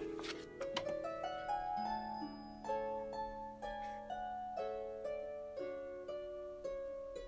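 Background instrumental music: a gentle melody of plucked-string notes, harp-like, over a held low note.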